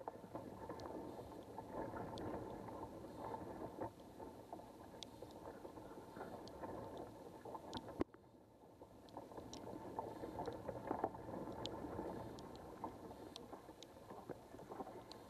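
Underwater ambience picked up by a submerged camera in a canal: a steady rushing murmur of water with scattered sharp clicks. The murmur drops off abruptly about eight seconds in, then gradually builds back.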